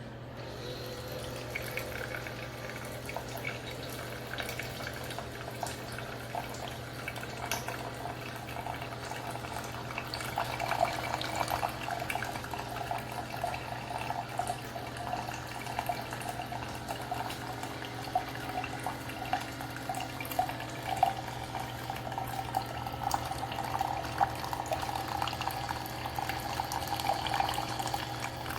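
Single-serve Keurig coffee maker brewing: hot water gurgling, bubbling and dripping over a steady low hum, growing busier about ten seconds in.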